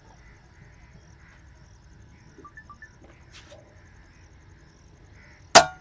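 Air rifle firing one shot, a single sharp crack about five and a half seconds in, after several seconds of quiet.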